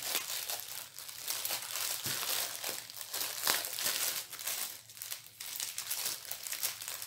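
Plastic bags of diamond painting drills being handled and rummaged through, crinkling irregularly with many small sharp crackles.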